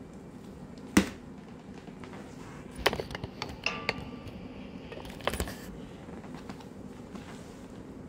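Handling noise: a single sharp knock about a second in, then a cluster of clicks and crinkles around three to four seconds and another brief cluster near five and a half, over a low steady room hum.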